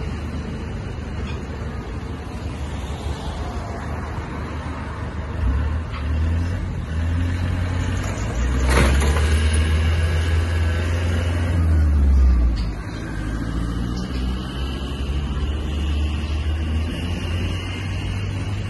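Road traffic driving through an intersection: a steady low rumble of cars and a light van, swelling about halfway through as the box van passes, with one sharp knock near the middle.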